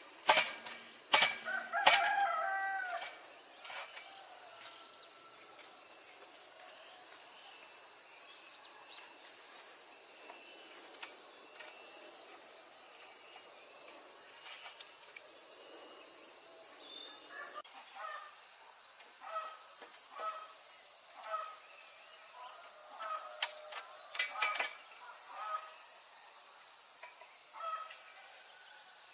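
Farmyard chickens: a rooster crowing, and later short runs of quick clucking calls, over a steady high-pitched background drone. A few sharp knocks in the first couple of seconds are the loudest sounds.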